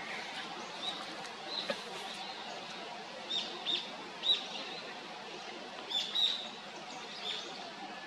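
Male Japanese thrush singing: short, clear whistled notes, singly and in quick pairs, over a steady low background hiss.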